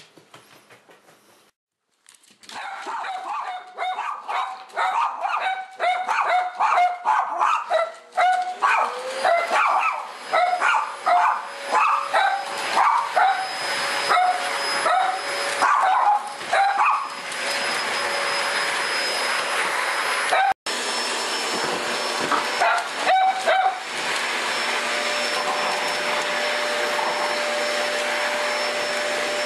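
Small dogs, a Cavalier King Charles spaniel and a Chihuahua, bark rapidly and excitedly at a vacuum cleaner. The vacuum starts up about a third of the way in, its motor whine rising and then running steadily. The barking thins out to a few last barks while the vacuum keeps running.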